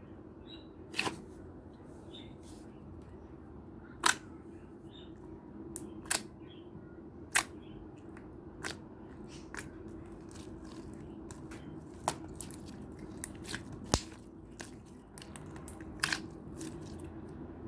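Yellow clear slime being pressed and stretched by hand, giving sharp, irregular popping clicks as trapped air bubbles burst, over a faint steady hum.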